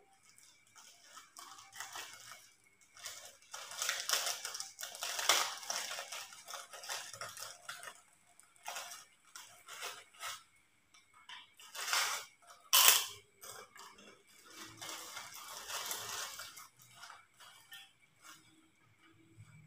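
Clear plastic bag crinkling and rustling as it is opened, and crisp crackers snapped and crushed by hand, in irregular crackly bursts with two sharp cracks close together past the middle.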